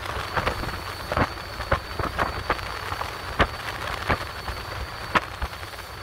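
Hull of a small motor yacht slapping and splashing through small waves while underway: irregular sharp slaps, a few a second, over a low rumble, with a faint steady high whine.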